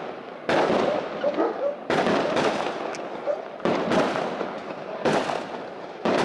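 Aerial fireworks bursting: a string of sharp bangs about once a second, each fading away over about a second before the next.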